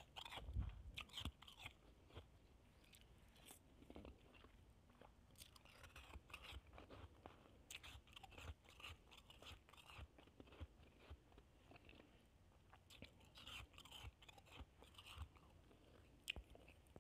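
Shaved ice being chewed: faint, irregular crunching in clusters with short pauses between them.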